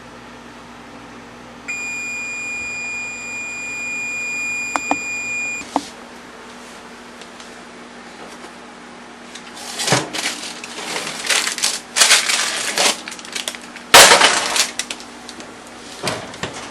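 A steady electronic beep of an oven timer for about four seconds, then the steady fan hum stops with a click as the oven is switched off. From about halfway in come loud clattering knocks of a baking dish being taken out and set down, the loudest near the end.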